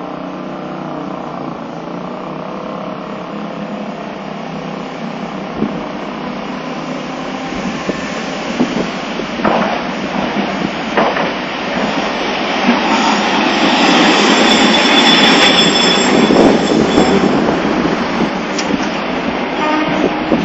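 Nagasaki Electric Tramway streetcar approaching on street-running track, its running noise of motor and wheels on rail growing steadily louder, with a few sharp clacks. A high metallic squeal comes in about two-thirds of the way through as it nears the stop and slows.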